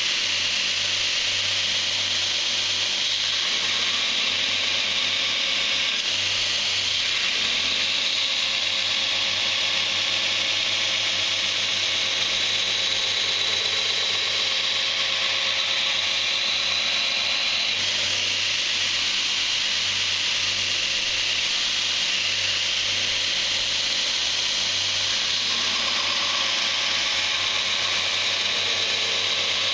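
Power grinder running steadily and grinding a D2 steel knife blank: a continuous, even abrasive hiss of steel against the abrasive.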